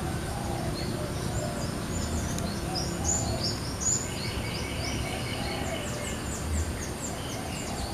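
Small birds chirping, with short high calls scattered throughout over steady outdoor background noise. A rapid pulsing trill joins for a couple of seconds midway.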